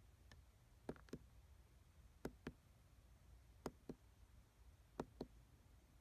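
Faint clicks of the OK button being pressed on a diesel air heater's LCD control panel, coming in pairs about a quarter second apart, four times at intervals of about a second and a half.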